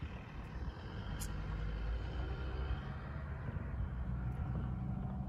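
A low, steady rumble with a faint hum in it, getting a little stronger about a second in.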